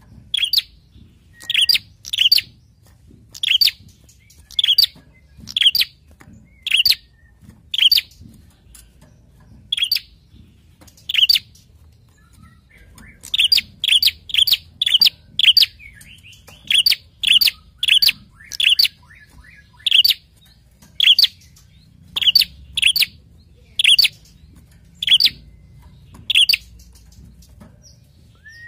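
A prenjak (tailorbird) calling: sharp, high, short call notes repeated about once a second, with a quicker run of calls about halfway through and another near the end.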